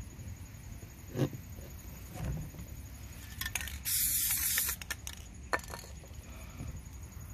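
Aerosol spray paint can giving one short burst of spray, a hiss lasting a little under a second about four seconds in. A few light clicks and knocks come around it.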